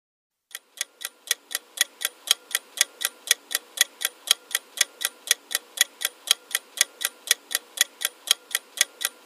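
Ticking-clock countdown sound effect timing the answer, an even run of sharp ticks about four a second, starting about half a second in.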